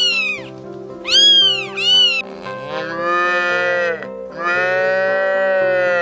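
A cat meowing three times in short meows that rise and fall in pitch, then a cow mooing twice in long calls, over background music.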